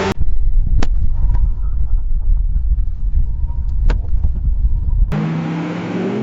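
Car crash sound effect: a sudden hit, then a heavy low rumble with a few sharp clicks and knocks. About five seconds in it cuts abruptly to another car sound with a steady droning pitch.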